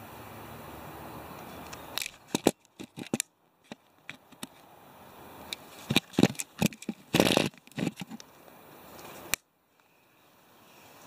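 Steady hiss of a butane torch flame, broken after about two seconds by a run of sharp clicks and knocks with short gaps of silence; the sound cuts off suddenly near the end.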